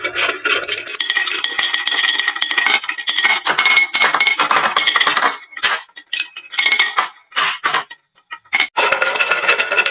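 Marbles clattering and clinking down a wooden marble-run slope and into toy trucks: a dense rapid rattle that thins to a few scattered clicks, pauses briefly, then comes back dense near the end.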